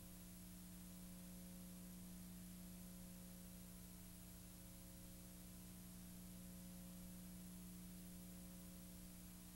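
Near silence: a faint steady hum with a light hiss, unchanging throughout.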